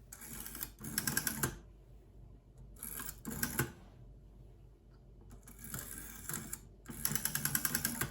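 Rotary dial of a 1920s BTMC desk telephone being dialled four times: each time the fingerplate is wound round and released, and it runs back under its governor with a quick even train of clicks, about ten a second.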